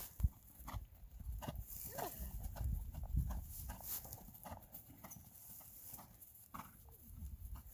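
Horse's hooves beating on grass turf at a trot: a steady rhythm of soft thuds, a little over two a second.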